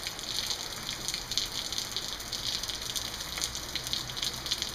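Steady rain falling, an even hiss dotted with the patter of drops.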